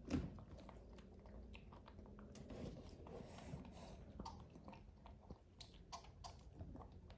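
Faint, scattered sticky clicks and soft tearing as fingers pull apart ripe jackfruit bulbs and strip the fibrous rags, with a soft knock just at the start.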